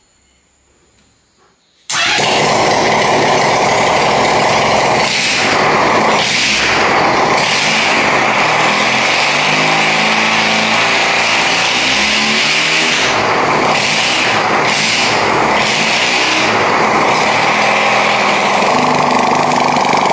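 Honda CD200 Roadmaster's parallel-twin engine starting abruptly about two seconds in and running loudly, its pitch moving up and down with the throttle through the middle.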